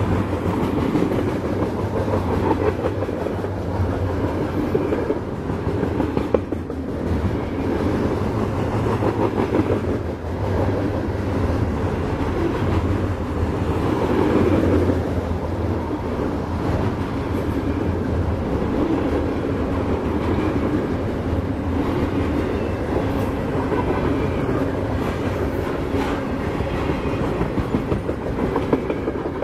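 A freight train's flatcars loaded with garbage containers rolling past close by: steel wheels running steadily on the rails with a continuous rumble and clatter.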